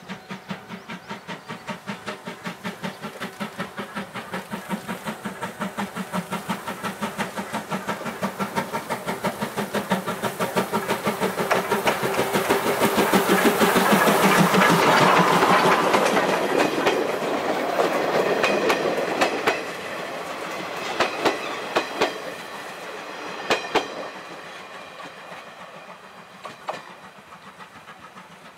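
Steam locomotive chuffing in a steady rhythm of about four beats a second, growing louder as it approaches and passes about halfway through. Then the passenger coaches' wheels clack over rail joints as the train moves away and fades.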